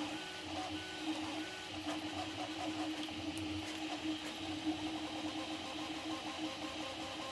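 Prusa MK4 3D printer running a print at 120 mm/s. Its stepper motors hum and whine in short, shifting tones as the print head moves, over a steady hiss.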